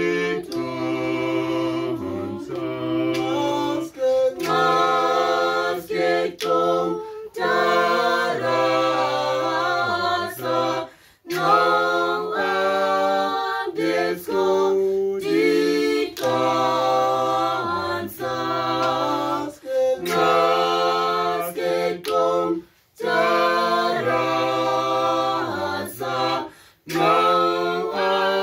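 A cappella choir singing a song in Khoekhoegowab, low and high voices in harmony, in held phrases broken by short pauses for breath.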